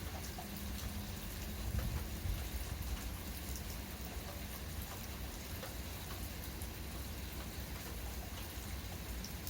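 Gentle, steady rain falling, an even patter with scattered single drops ticking. A brief low rumble swells about two seconds in.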